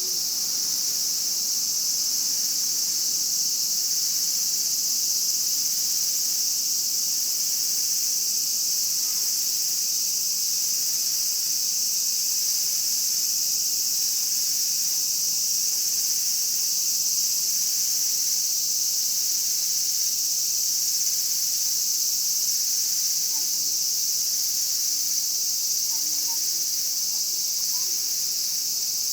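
A chorus of Japanese cicadas droning steadily at a high pitch, unbroken throughout. A fainter, lower pulse repeats every couple of seconds underneath.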